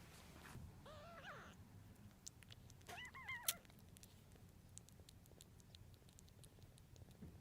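Kitten mewing twice, about two seconds apart, the second mew higher-pitched and arching. A sharp click comes right at the end of the second mew, followed by faint small ticks.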